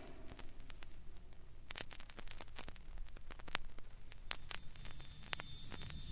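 Faint vinyl record surface noise in the quiet groove between tracks: scattered clicks and pops over a low hum.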